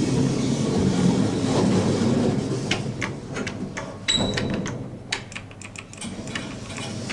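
Passenger lift stopped at a landing with its doors working: a rumbling clatter, then a short high beep about four seconds in, followed by a quick string of clicks.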